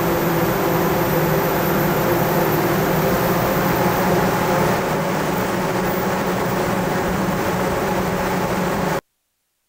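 Loud steady rush of air from a large electric centrifugal blower running, with a low steady hum under it; it cuts off abruptly near the end.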